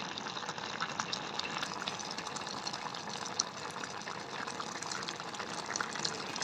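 Steady watery rushing or bubbling noise with scattered small clicks.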